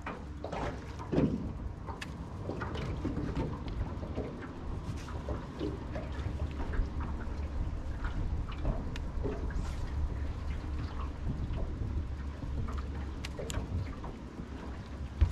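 Wind rumbling steadily on the microphone over water lapping around a small boat, with scattered small clicks and knocks.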